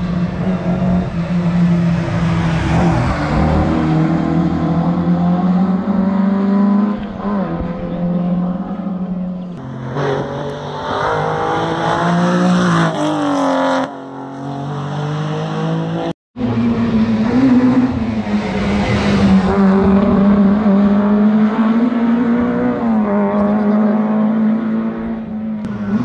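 Historic rally cars driven flat out on a closed stage, engines revving hard and climbing through the gears as they pass, in several short clips cut one after another. A brief silent gap falls at one cut about two-thirds of the way through.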